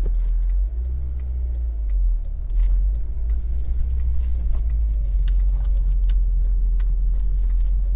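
Cabin sound of a 2007 Honda Civic Type R (FD2) under way: the 2.0-litre four-cylinder VTEC engine, breathing through a Mugen intake and exhaust, and the road noise make a steady low rumble. The rumble dips about a second in and picks back up a second or so later, with faint ticks and rattles over it.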